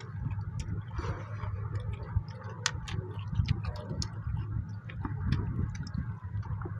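Two people eating rice and mutton curry by hand from steel plates: fingers mixing and scooping rice against the metal and chewing, with many small scattered clicks over a steady low hum.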